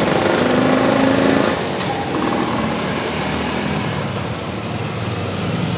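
A vintage scooter and motorcycles ride past one after another, engines running. The loudest pass, with a steady engine tone, comes in the first second and a half; then the sound drops to lower, mixed engine noise as a larger motorcycle follows.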